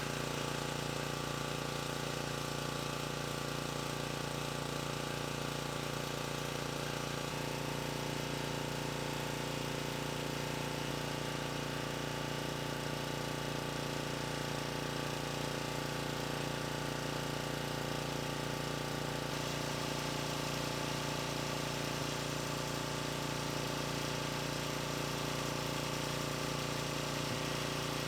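Small gasoline engine running steadily at constant speed.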